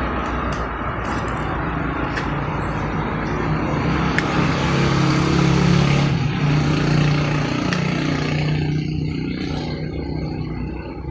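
A motor vehicle's engine running as it passes by. It grows to its loudest about halfway through and fades over the last few seconds.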